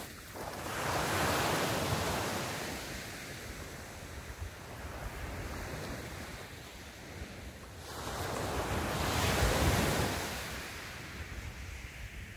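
Small sea waves breaking on a beach and washing up the shore, swelling about a second in and again around nine seconds in.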